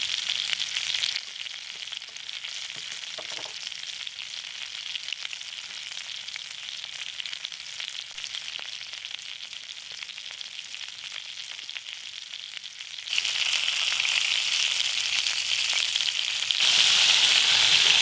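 Sausages sizzling in a skillet over a charcoal bucket barbecue, a steady fat-spitting hiss. It drops quieter about a second in and grows louder again in two steps near the end.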